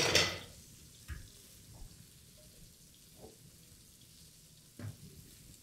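Lobsters frying in a hot pan grill: a short loud hiss at the start that dies away within half a second, then faint sizzling with a few small crackles.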